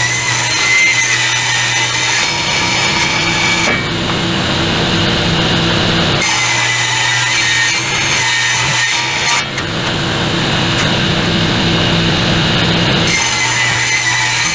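Table saw running and ripping 3/4-inch wood boards into strips. The tone shifts every few seconds over a steady motor hum.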